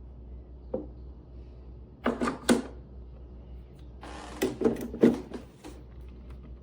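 Clicks and knocks of hard objects being handled and set down at a kitchen counter: a single small click, then a quick cluster of clatters about two seconds in, and another cluster about four and a half seconds in over a brief hiss.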